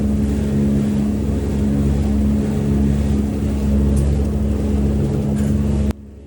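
A steady low mechanical hum and rumble, like a motor running, that cuts off abruptly near the end.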